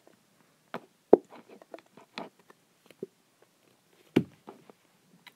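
Wooden craft stick stirring in a small plastic tub of glue slime, giving scattered light clicks and taps. Two sharper knocks of the stick against the tub come about a second in and about four seconds in.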